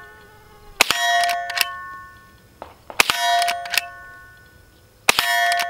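Henry H001 .22LR lever-action rifle fired three times, about two seconds apart, each shot followed by a steel target ringing out and fading over about a second.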